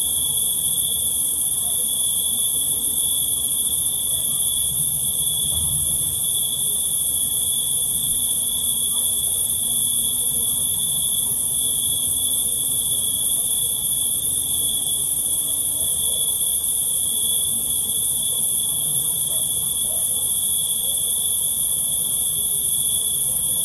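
Crickets trilling continuously in one steady, unbroken high note, with a brighter, higher insect hiss above it.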